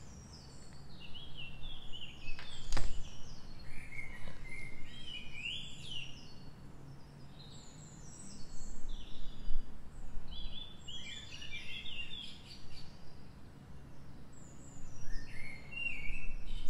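Small birds chirping and singing in the background, many short calls gliding up and down in pitch throughout, with one sharp click about three seconds in.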